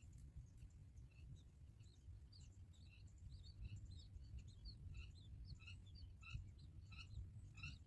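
Common myna chicks making short, high, faint begging chirps in quick succession, growing more frequent after about two seconds, over a low steady rumble.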